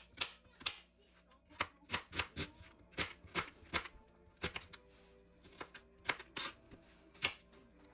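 Kitchen knife cutting vegetables on a cutting board: a run of irregular sharp knocks, a few a second, with short pauses.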